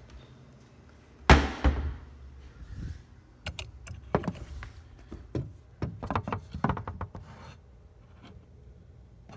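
A cabinet door opening with a loud thunk about a second in and a second knock just after. A run of lighter knocks and clatters follows over the next few seconds.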